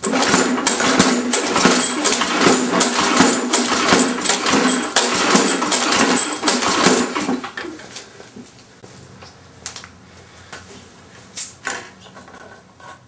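Lawn mower engine being cranked over by its pull-start with the spark plug out, so it turns without firing, as for a compression test. A loud rapid clatter lasts about seven seconds and then dies away to a few scattered clicks and knocks.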